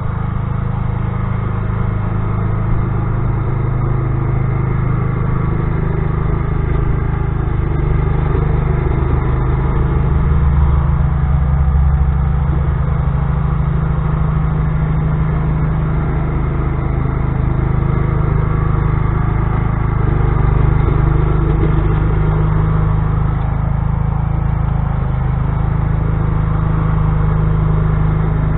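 Old Sears Craftsman lawn tractor's engine running steadily as it pushes snow with its plow blade, swelling slightly in level a few times.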